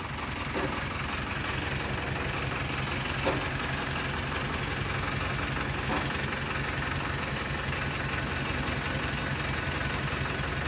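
Engine idling steadily with an even low throb, with a few faint knocks over it.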